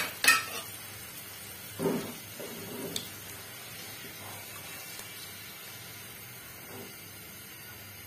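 Metal spatula and tongs clicking and scraping against a frying pan as a fried Mughlai paratha is lifted out of the hot oil. There are two sharp clicks at the start and a shorter clatter about two seconds in, over a faint steady sizzle of the oil.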